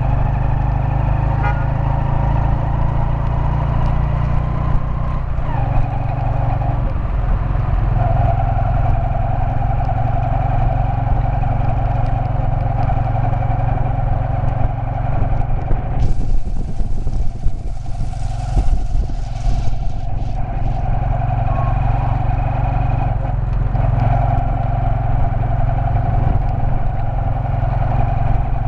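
Motorbike engine of a Cambodian tuk-tuk (a motorcycle pulling a passenger trailer) running steadily while under way in town traffic, heard from the trailer seat. About halfway through, a few seconds of louder rushing, gusting noise rise over the engine.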